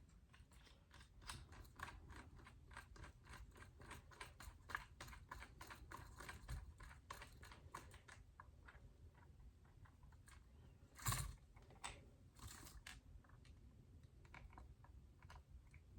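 Faint, irregular clicking and light knocking of plastic parts being handled as the RC crawler's body is fitted to its chassis, with one louder knock about eleven seconds in.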